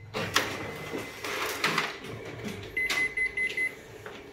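Ricoh MP 5002 copier's automatic document feeder running and pulling in an original, with clicks and mechanical noise. About three seconds in come four short high beeps: the copier's warning that the original has jammed in the feeder.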